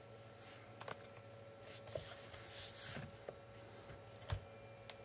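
Quiet handling noise from a laptop being worked on: a few light clicks and knocks, with a rubbing rustle about two seconds in and a sharper knock near the end.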